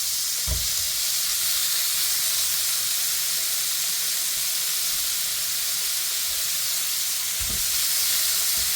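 Smoked kielbasa sizzling on a hot Cuisinart electric grill plate set to sear: a steady high hiss, with a few soft low knocks.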